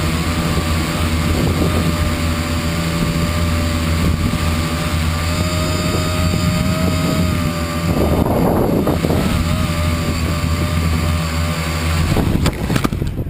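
Electric motors and propellers of a home-built tricopter running in flight, heard from its onboard camera as a steady whine whose pitch shifts with throttle. Near the end the whine stops and a few sharp knocks follow.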